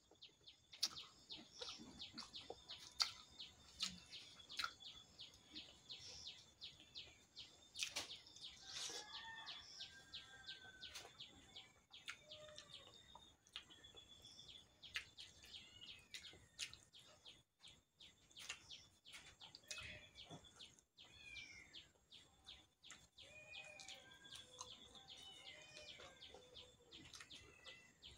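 Close-up eating sounds of a person chewing curry and rice eaten by hand: irregular wet mouth clicks and smacks. Birds chirp in the background, most around the middle and near the end.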